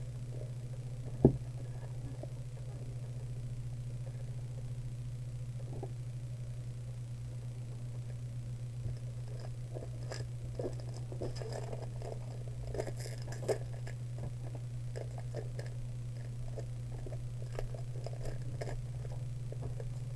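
Trading cards being handled: light rustles and small clicks in the second half, over a steady low hum, with one sharp click about a second in.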